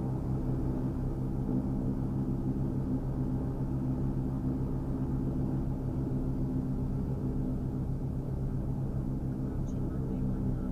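The twin engines and propellers of a Cessna 340 running steadily at takeoff power during the takeoff run: an even, constant-pitch drone.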